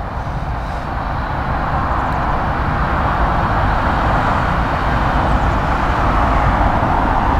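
Airbus A321's twin jet engines at taxi power: a steady rushing whine over a low rumble, growing slowly louder as the airliner taxis closer.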